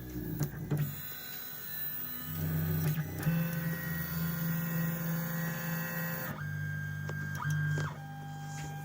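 Stepper motors of a home-built RAMPS 1.4 3D printer driving the axes toward their endstops during auto-home: a steady pitched whine that stops and changes pitch several times as the axes move in turn.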